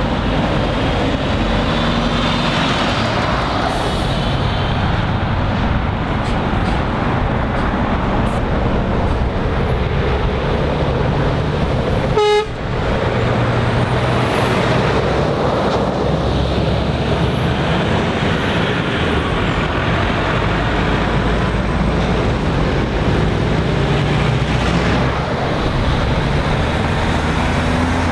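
Lorries and vans driving past close by, engines and tyres running steadily. A little before halfway, a vehicle horn gives one short toot.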